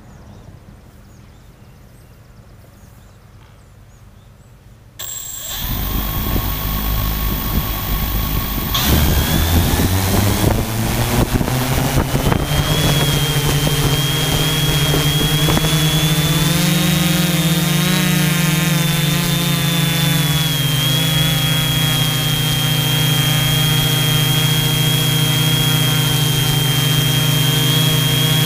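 FY690 hexacopter's six Sunnysky V3508 580Kv brushless motors and propellers, recorded from the camera on its frame. About five seconds in the motors start with a sudden jump and spin up with a rising whine as the copter lifts off. It then settles into a steady hovering hum with a high whine, which rises briefly in pitch about two-thirds of the way through.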